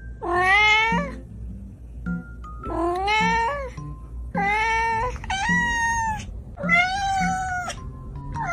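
A domestic cat meowing: five or six long, drawn-out meows in a row, some rising and then falling in pitch. Under them runs background music with a soft, regular beat.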